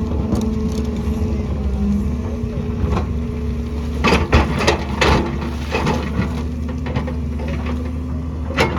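Excavator's diesel engine running steadily, with a cluster of sharp knocks and clatters about four to five seconds in and another knock near the end, typical of the bucket striking rock.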